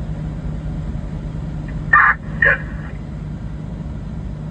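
A vehicle engine idles with a steady low hum. About two seconds in there are two short bursts of a voice.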